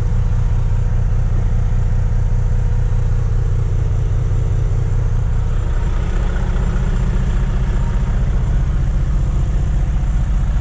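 Volvo VNL semi-truck's diesel engine idling close by, a steady low rumble.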